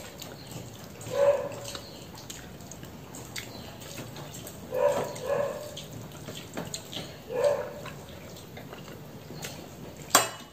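A pet dog making short whines, about four times, over the faint sound of rice being mixed by hand on a steel plate. A sharp clink comes near the end.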